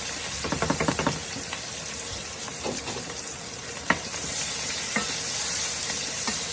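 Chopped onions and green and red bell peppers sizzling in bacon grease in a pan, with a steady hiss. A utensil knocks against the pan as they are stirred: a quick run of knocks about half a second in, then a few single knocks.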